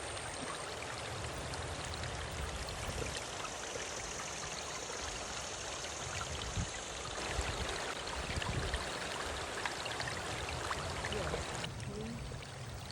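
Flowing water rushing steadily, duller in tone near the end.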